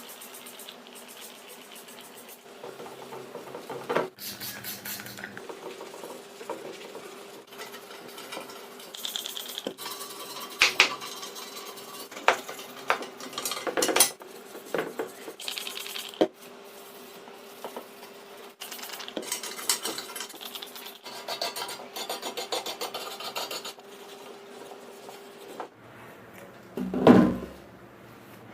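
Metal tools and bicycle parts clinking, knocking and scraping in a series of separate hits, over a faint steady hum. A louder clunk comes near the end.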